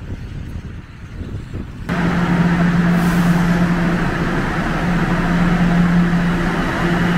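Low wind-like rumble, then about two seconds in a loud, steady mechanical hum with a hiss starts abruptly and carries on unchanged.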